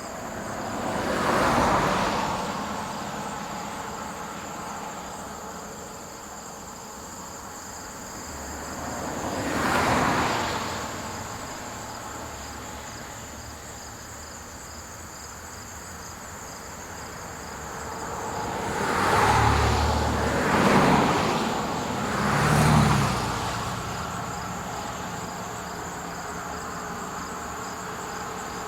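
Vehicles passing one at a time along a country road, each swelling up and fading away: one about 2 s in, another about 10 s in, then three in quick succession around 19 to 23 s in. Crickets chirp steadily underneath.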